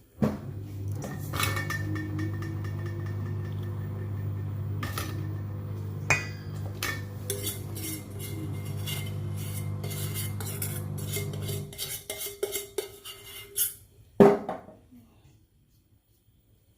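A small motor hums steadily for most of the time and stops abruptly, with utensils clinking and scraping against a bowl over it. A loud clank of a dish or pan comes a couple of seconds after the hum stops.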